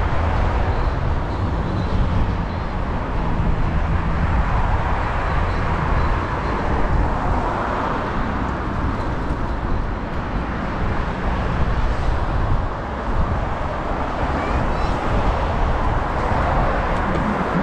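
Road traffic on a multi-lane street: cars driving past close by, their tyre and engine noise swelling and fading as each one passes, over a steady low rumble.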